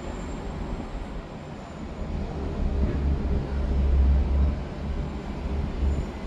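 Low rumble inside a moving Disney Skyliner gondola cabin riding along its cable. The rumble swells about three to four seconds in, and there is a faint high whine near the start.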